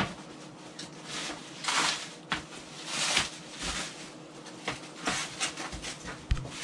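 Plastic stretch wrap and cardboard packaging rustling and crinkling in several short swells as flat-packed panels are pulled about. A few light clicks and one low knock of a board near the end.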